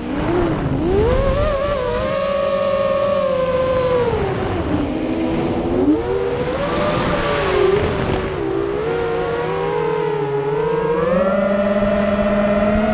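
Racing quadcopter's 2204 2300Kv brushless motors and 5045 three-blade props whining as heard from the onboard camera, the pitch rising and falling with throttle: a dip just at the start, held high for a few seconds, sagging and wavering in the middle, climbing again near the end.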